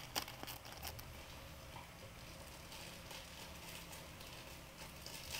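Scissors snipping open a foil Indomie seasoning sachet, with a few sharp clicks and crinkles in the first second. After that a faint steady low hum with light crackling continues.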